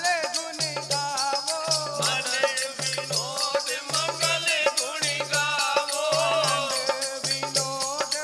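Sikh devotional kirtan: voices singing a hymn over harmonium, with a dholak drum keeping a steady repeating beat and hand clappers clicking quickly in time.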